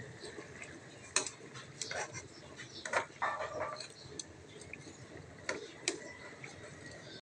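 Scattered sharp pops and crackles from tuna frying in oil in a pan, over a faint sizzle.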